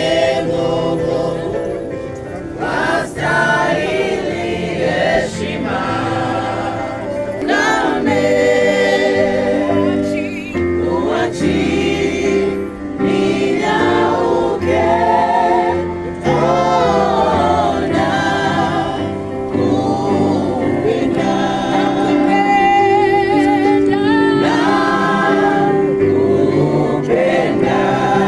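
A choir singing a gospel song over a steady bass accompaniment.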